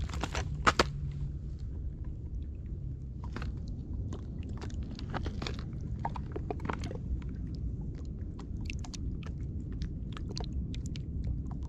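Small waves lapping at a pebbly lakeshore, with many scattered crackling ticks of water over stones, over a steady low rumble of wind on the microphone. Two sharp crunches come just under a second in.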